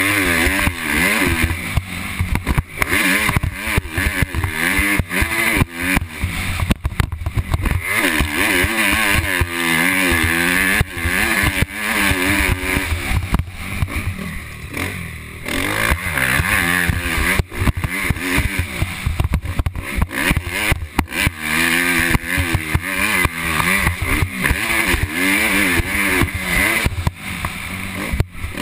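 Motocross dirt bike engine revving up and down again and again as the rider throttles and shifts around the track, with brief dips where the throttle is shut. Wind rushes over the microphone.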